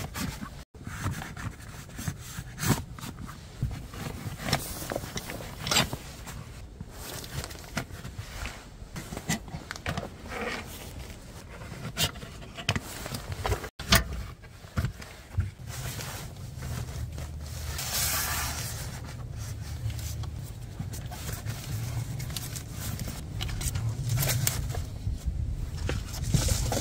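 Camping tools and gear being handled and packed into a nylon backpack organizer: scattered clicks, knocks and scrapes, with a low steady hum underneath from about halfway on.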